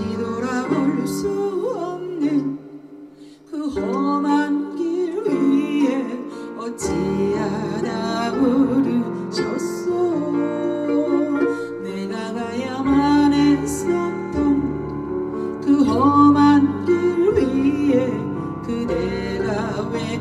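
A voice singing a song with vibrato over instrumental accompaniment. The music drops away briefly about two seconds in, then comes back in.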